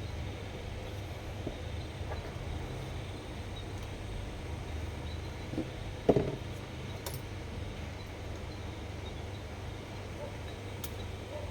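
Small parts of a baitcasting fishing reel being handled during disassembly: a few faint clicks and one louder knock about six seconds in, over a steady low hum.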